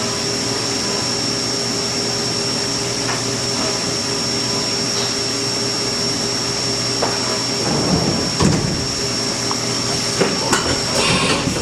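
CNC vertical mill running in the shop: a steady hum with a high steady whine. Irregular knocks and rattles join in from about seven seconds in.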